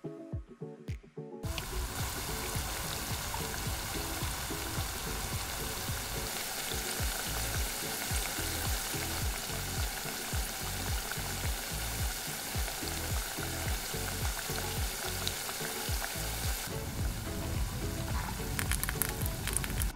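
Tater tots deep-frying in a miniature steel wok of hot oil: a steady sizzle that starts suddenly about a second and a half in, as they go into the oil. Near the end come a few light metal clicks as a slotted spoon stirs them.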